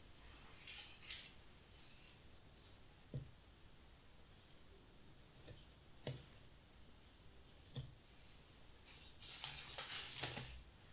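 Dried bunny-tail grass stems rustling softly as they are handled and set into a glass vase, with a few light taps in between. Near the end, a louder stretch of dry crinkling as the hands rummage among the loose grass heads on the newspaper.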